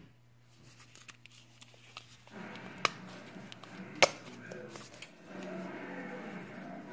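Kitchen handling of a plastic spice shaker: two sharp clicks a little over a second apart, then faint steady noise as garlic powder is shaken into a pot of simmering tomato sauce.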